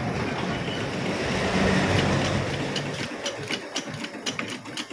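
Workshop machinery running with a loud, steady low noise that dies away about three seconds in, leaving a run of sharp clicks, several a second.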